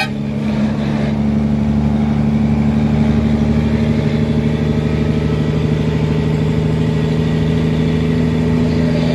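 Truck engine heard from inside the cab, running steadily while cruising, a constant low drone.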